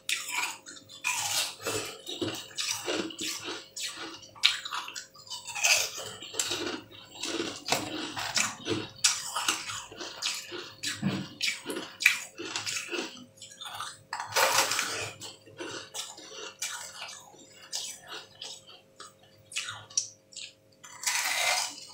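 Biting and chewing chunks of frozen green ice close to the microphone: irregular wet, crackly crunches and slurps of melt water. There is a louder crunch about two-thirds of the way in and another near the end.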